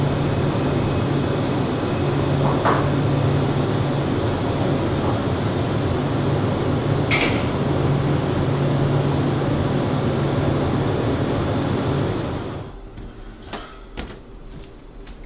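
Coffee shop room tone: a steady hum and hiss with two light clinks, the second brighter and ringing. Near the end it cuts suddenly to a much quieter room with a few soft knocks.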